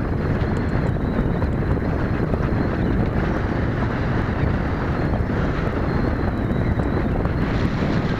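Wind buffeting the microphone in a steady, dense rumble. A faint, thin high tone comes and goes twice, drifting slightly down in pitch.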